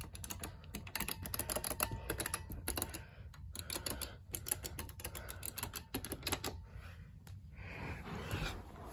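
Elevator push buttons on a button box being pressed and handled, giving rapid, irregular plastic clicks much like typing.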